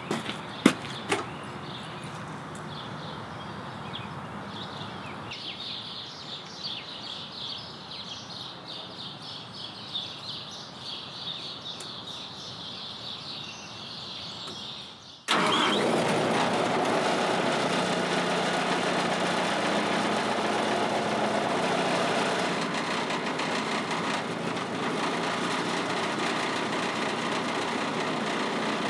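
Quiet outdoor sounds with a few knocks at first. About fifteen seconds in, a sudden cut brings the Bandit Model 90XL brush chipper's Kubota diesel engine running steadily, much louder.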